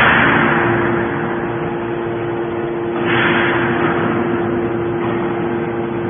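Y81Q-1350 hydraulic scrap metal baler running: a steady hum from its hydraulic power unit, with a loud surge of rushing noise at the start and again about three seconds in, each fading over about a second.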